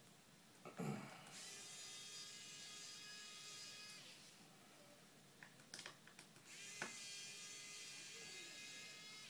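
Small electric screwdriver whining as it backs out the Phillips screws holding the iPad's LCD, in two runs of a couple of seconds each that start with a short rise in pitch. A knock about a second in, and a few light clicks between the two runs.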